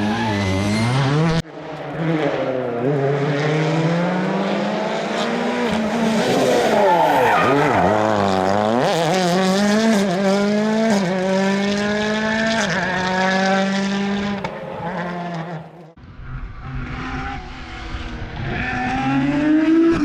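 Rally car engines revving hard through the gears, pitch climbing and dropping over and over with quick shifts as the cars accelerate and brake. The sound breaks off abruptly twice and a different car takes over.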